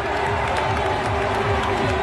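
Baseball stadium crowd cheering and clapping over cheer music, a steady dense din.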